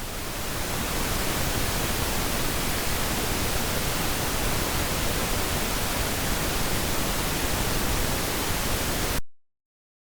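Steady broadband calibration noise signal, an even hiss across all pitches, that cuts off abruptly about nine seconds in.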